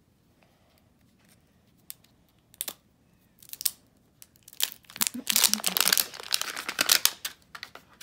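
Plastic wrapping on an LOL Surprise ball being peeled and crinkled by hand: a few scattered crackles, then dense crinkling and tearing from about halfway in, ending shortly before the end.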